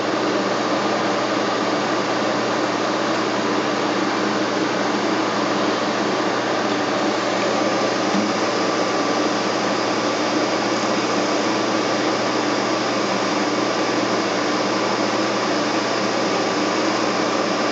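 Milling machine motor and spindle running at a steady speed, a constant whirring hum.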